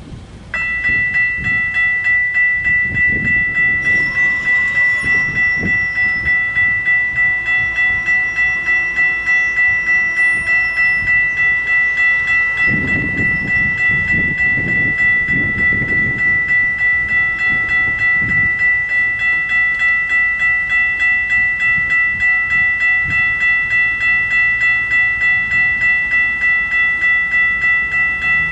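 Railroad crossing warning bell ringing, starting suddenly about half a second in and striking evenly about twice a second as the crossing signals activate and the gates come down.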